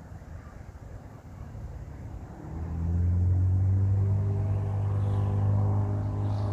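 A faint low rumble, then an engine's steady low-pitched hum comes in sharply about two and a half seconds in and holds.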